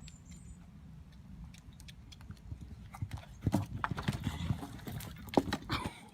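Irregular sharp knocks and clicks over a low steady rumble, sparse at first and coming thicker from about halfway through.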